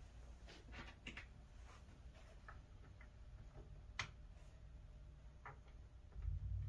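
Faint taps and clicks of wood and tools being handled at a workbench, with one sharper click about four seconds in. A low rumble comes in near the end.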